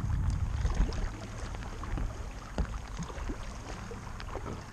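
Kayak paddle strokes in calm river water: the blades dipping and splashing, with scattered drips and light knocks. A low rumble under it eases after about a second.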